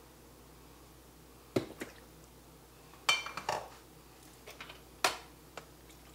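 About five short knocks and clinks of kitchen items being handled on a counter beside a cutting board. The one about three seconds in is the loudest and rings briefly.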